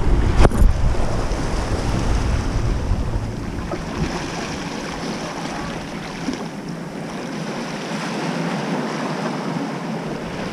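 Surf washing against jetty rocks, with wind buffeting the microphone, heaviest in the first few seconds. A single sharp knock about half a second in.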